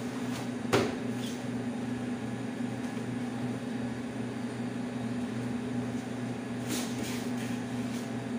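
Steady low electrical hum of an appliance in the room, with upholstery fabric rustling as it is handled and smoothed over a chair seat pad, and one sharp knock less than a second in.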